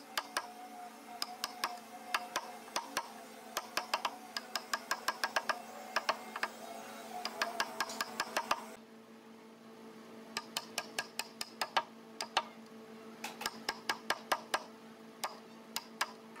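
Quick runs of sharp knocks on wood, several taps at a time, over a steady low hum.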